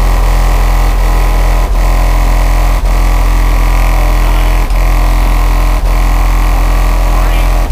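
Car audio subwoofers playing a steady, deep bass tone at competition volume, heavily distorted, with brief dropouts every second or two.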